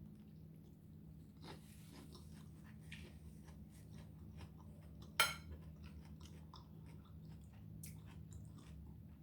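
A person chewing food close to the microphone, with many small mouth clicks and one sharp, louder click about five seconds in.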